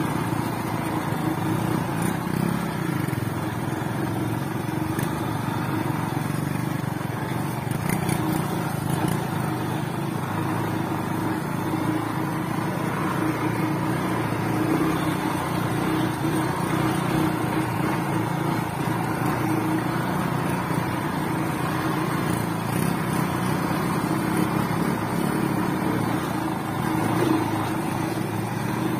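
Motorcycle engine running steadily at travelling speed on a dirt track, heard from on board the bike.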